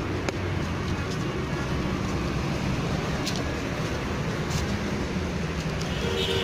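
Steady roadside traffic noise, with a few light clicks from a spoon stirring puffed rice in a plastic jug.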